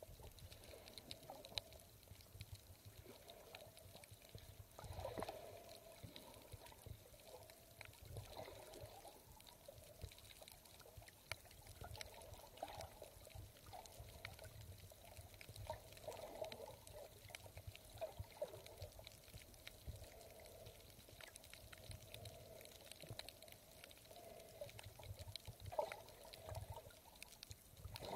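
Faint, muffled water sloshing and trickling, swelling irregularly every second or two, with scattered small clicks.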